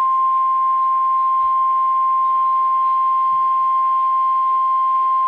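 NOAA Weather Radio warning alarm: the single steady 1050 Hz tone, held without a break and sounding through a weather radio's speaker, signalling that a warning message is about to be broadcast.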